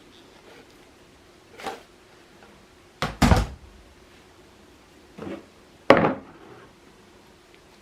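A few separate knocks and clatters, as of things being handled and set down: a soft one about one and a half seconds in, a loud double knock around three seconds, a smaller one past five seconds and another loud knock near six seconds.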